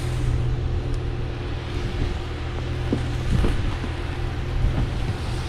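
Infiniti G37's 3.7-litre V6 engine running steadily at idle with a deep, even rumble.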